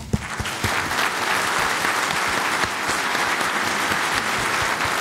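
Audience in a lecture hall applauding steadily: many people clapping at the end of a talk.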